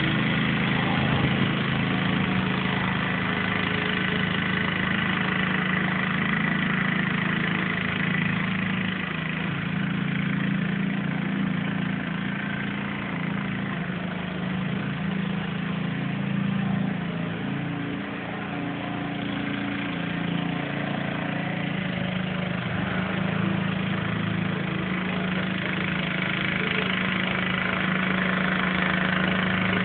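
Lawn mower engine running steadily, a little quieter for several seconds midway.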